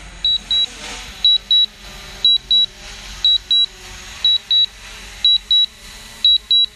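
Drone remote-controller warning alarm: a pair of short, high beeps repeating about once a second, over a low steady background hum.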